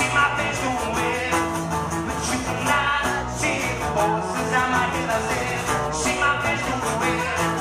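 Live acoustic band music: acoustic guitars strummed steadily under a lead vocal sung into a microphone.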